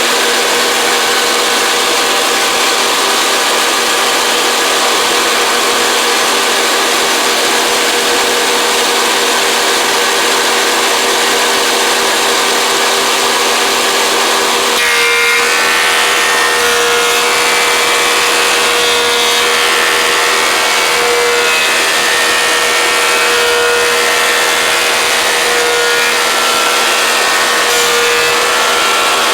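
Thickness planer running and planing a glued-up oak panel flat in a single pass, a loud steady machine noise. About halfway through, the sound changes and holds new steady tones.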